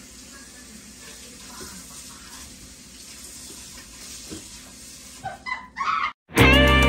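Faint steady hiss with a few soft ticks, then background music starts abruptly about six seconds in.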